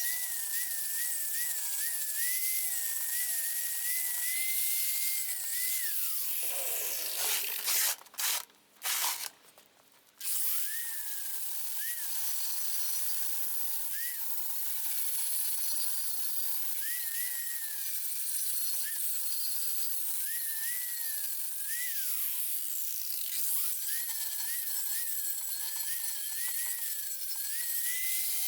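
Angle grinder running against steel, its whine wavering as it bears on the work. It winds down about six seconds in, cuts out in a few short gaps, and runs up again around ten seconds in.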